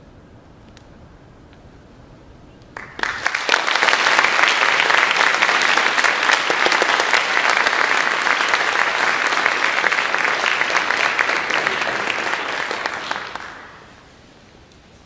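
Concert hall audience applauding. The clapping breaks out suddenly about three seconds in after a quiet moment, holds steady, and dies away near the end.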